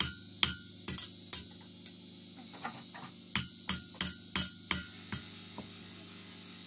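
Hand hammer striking a steel knife blade on an anvil, each blow ringing. Four quick blows about half a second apart, a pause of about two seconds, then about six more at the same pace, the last ones lighter.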